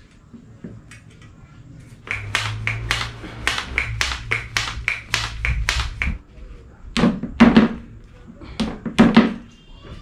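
Hands working a bicycle tyre around its rim to seat it evenly on a newly fitted inner tube: a run of quick taps about three a second, then two louder clusters of thumps near the end.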